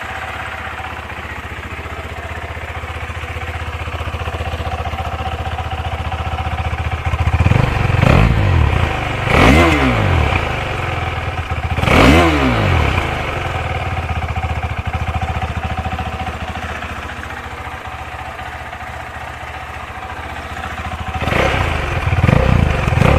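KTM 390 Adventure's single-cylinder engine idling, then revved in three quick throttle blips between about 7 and 13 seconds in, each rising and falling sharply. It settles back to idle and is revved again near the end.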